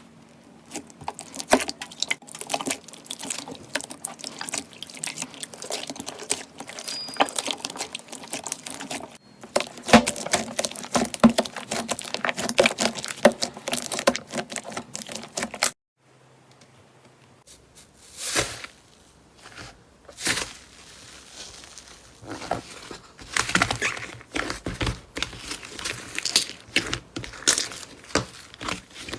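Slime being squeezed and pressed by hand, giving a dense run of sticky crackling clicks. It cuts off suddenly about 16 s in, and after that the squishes come in separate short bursts.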